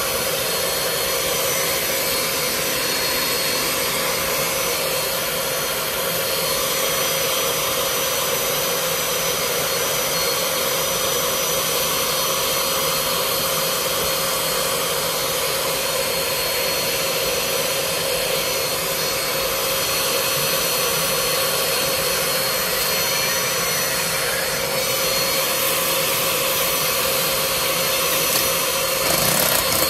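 Carpet extractor's vacuum motor running steadily, a constant whine with a rush of air, briefly louder near the end.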